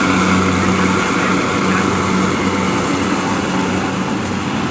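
Kubota DC70 rice combine harvester running steadily while harvesting, its diesel engine giving a constant low drone under load.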